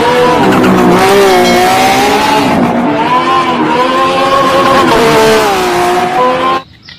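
Race car engine sound effect, the engine note revving up and down in pitch over a hiss, cutting off abruptly shortly before the end.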